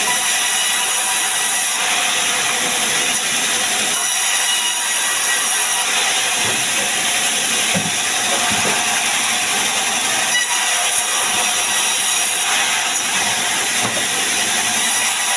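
Sawmill band saw running and cutting through a sengon (albizia) log as the log is fed along the table. The noise is loud and steady.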